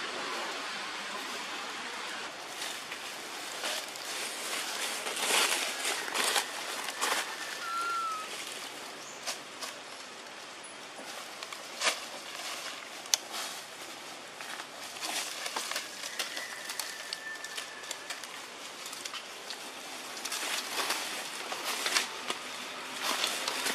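Outdoor forest ambience with scattered crackles and rustles of dry leaves, and a short bird chirp about eight seconds in.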